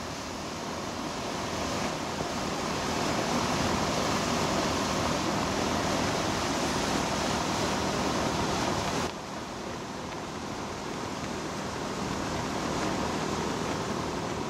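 Churning propeller wash in a ferry's wake: a steady rushing of broken water, with a faint steady hum from the ship beneath it. The rush drops suddenly in loudness about nine seconds in.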